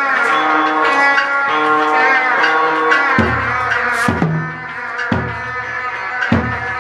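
Hát bội accompaniment music: a plucked string instrument plays a melody. From about halfway through, a low, ringing drum joins in, struck four times about a second apart.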